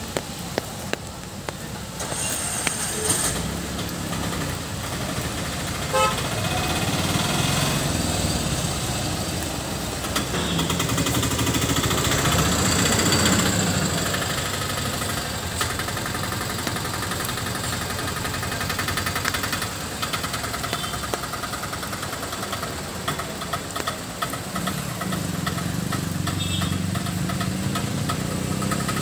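Road traffic on a hairpin bend: a large coach's diesel engine pulling slowly through the turn among motorcycles and autorickshaws, tyres on a wet road, and a short horn beep about six seconds in. The engine noise swells twice, around twelve seconds in and again near the end.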